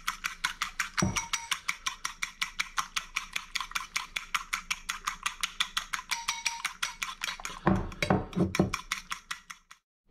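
Egg yolks being beaten by hand in a bowl, the utensil clicking rapidly and evenly against the bowl about six times a second. A few heavier knocks come near the end, then the beating stops.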